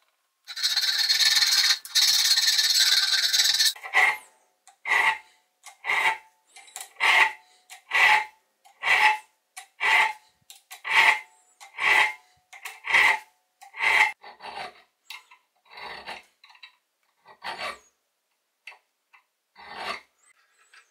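Rusty steel wrench being worked with a file or abrasive: a continuous scraping for about four seconds, then evenly spaced single strokes about one a second, fading to fainter, irregular strokes for the last several seconds.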